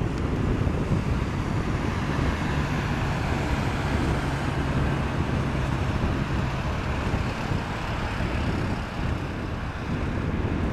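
Airbus A319 airliner's jet engines running as it rolls out along the runway after touchdown: a steady noise, with a low hum in it from about two and a half to seven seconds in.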